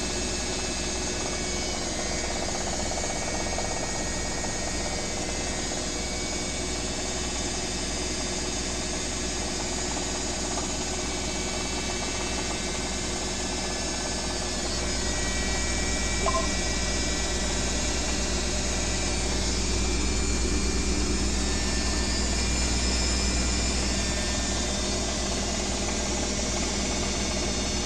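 Washing machine on its spin cycle, running with a steady mechanical hum and low rumble. The rumble grows louder about halfway through as the drum speeds up.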